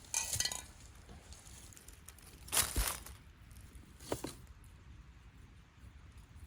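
A person's footsteps on rough woodland ground: three short crunching steps, the loudest about two and a half seconds in.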